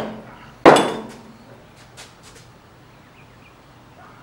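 A single hammer blow on metal parts of a Quaife quick steering rack clamped in a vise, tapping a part down; it is loud with a short ringing tail, followed by a few faint light clinks.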